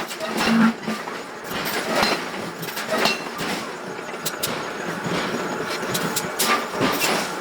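Irregular metallic clanks and knocks of heavy iron and steel work, some leaving a brief ring, over a steady factory background noise.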